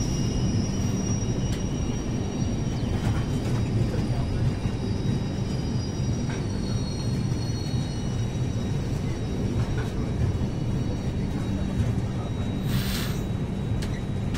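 Steady rumble of train wheels running on the rails as a line of open-top freight wagons rolls by, with a thin high whine throughout and a short hiss about thirteen seconds in.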